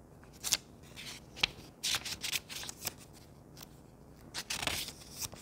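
Folded paper user manual being opened and handled: a string of short, sharp paper rustles and crackles, most of them around two seconds in and again near the end.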